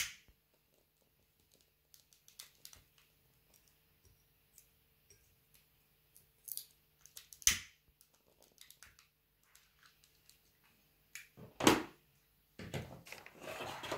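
Dry bay leaf crackling as it burns, in small irregular clicks. A few louder knocks of things being handled come about seven and twelve seconds in, and there is a short rustle near the end.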